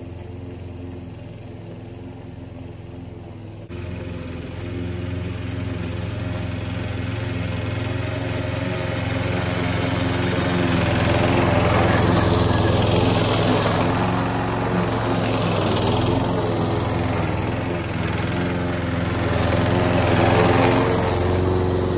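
Toro Recycler lawn mower's Briggs & Stratton single-cylinder engine running steadily under load while cutting tall grass. The level jumps about four seconds in and grows louder as the mower comes closer.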